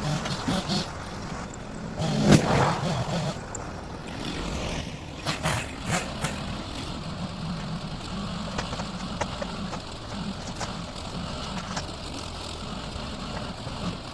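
Engine running steadily, with a loud clunk about two seconds in and a few sharper knocks around five to six seconds, typical of logs or equipment being handled.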